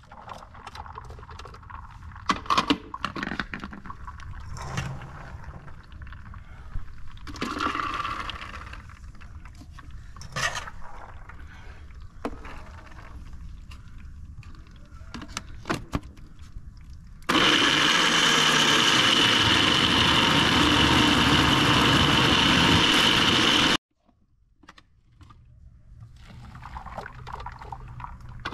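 Electric blender motor running steadily for about six seconds as it pulverises pomegranate arils, then cutting off suddenly. Before it, knocks and scrapes of the plastic blender jar being emptied, refilled with arils and set back on the base.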